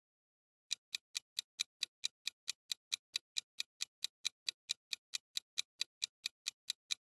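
Clock-tick sound effect marking a countdown timer: short, sharp, evenly spaced ticks about four and a half a second, starting under a second in.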